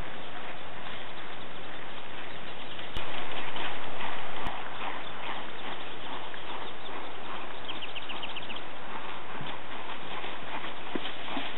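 Hoofbeats of a Thoroughbred mare loping on grass, over a steady background hiss. Two sharp clicks, about three seconds in and a second and a half later, bound a briefly louder stretch.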